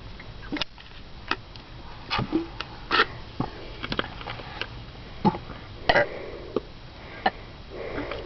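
A person sniffing, with about a dozen sharp clicks at irregular intervals.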